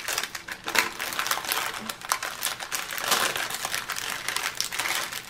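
Clear plastic packets of diamond-painting drills crinkling and crackling as hands handle them, in quick irregular rustles.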